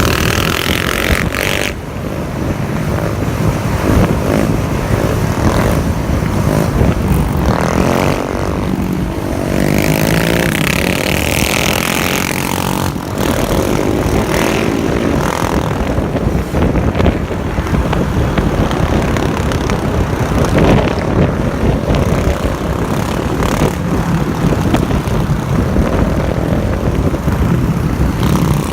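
Sport quad (ATV) engines running on the move, revving up and down, the pitch rising and falling most clearly about eight to twelve seconds in.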